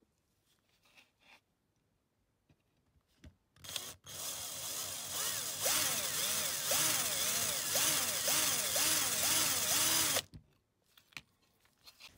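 Cordless drill running for about six seconds, drilling out a rivet on a die-cast toy car's metal base, its pitch wavering up and down. It starts about four seconds in after a few faint clicks and stops shortly before the end.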